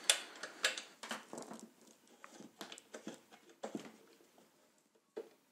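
Handling noise: irregular light clicks and scrapes of a 3D-printed plastic support being fitted against a 3D printer's control box while a screw is done up by hand. The noises thin out toward the end, with one last click near the end.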